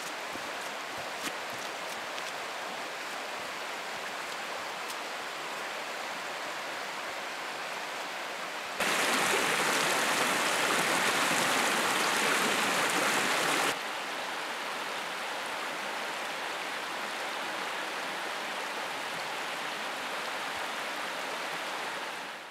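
Shallow rocky river rushing over stones, a steady rush of water. It is louder for about five seconds midway, then drops back and fades out near the end.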